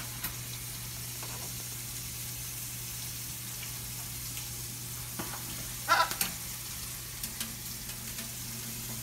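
Kitchen tap running into a stainless steel sink, a steady hiss of water. About six seconds in, a short, loud pitched squeak-like sound stands out, with a few faint clicks around it.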